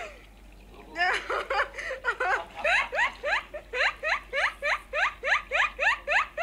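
A small animal squeaking over and over: short, high squeaks, each rising sharply in pitch, about three a second, starting after a pause of about a second.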